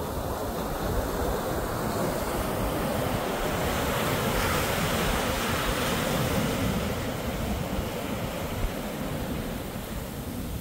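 Ocean surf breaking and washing up on a sandy beach, swelling about halfway through and then easing, with wind rumbling on the microphone.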